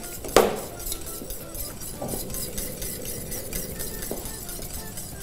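Metal whisk clinking against a stainless steel pot while stirring: one loud ringing clink about half a second in, then fainter knocks around two and four seconds.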